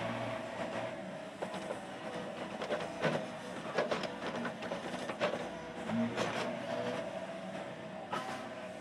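Yanmar mini excavator running at work with a steady engine tone, its bucket knocking and clanking against dirt and rock several times as it digs and lifts.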